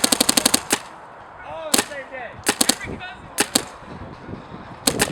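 Planet Eclipse Ego paintball marker firing: a rapid string of shots at about a dozen a second at the start, then single shots spaced out, and another rapid string beginning near the end.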